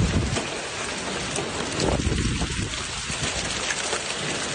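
Hail and rain pelting down hard, a dense steady clatter of countless small impacts on hard surfaces.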